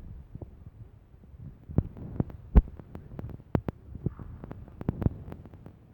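A series of irregular low thumps and clicks over a faint rumble, the loudest a little over two and a half seconds in.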